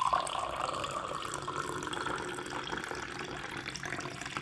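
Water pouring in a steady stream into a glass tumbler, splashing and filling it, the pitch of the filling rising slightly as the glass fills.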